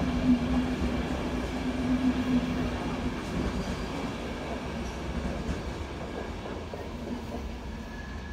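Passenger train running away along the line, a steady rumble with a low hum over the first few seconds, growing gradually fainter as it recedes.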